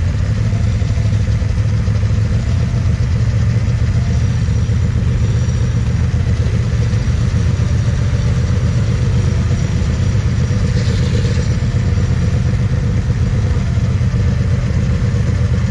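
A quad bike's engine idling steadily close by, a low, even rumble.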